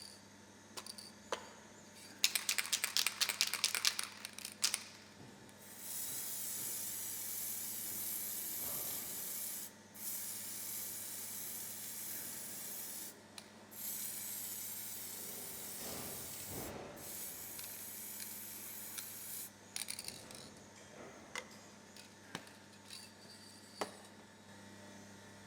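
Aerosol can of mold-maintenance spray shaken in quick rattling strokes, then sprayed in three long, steady hisses separated by brief pauses. A few light clicks and knocks follow near the end.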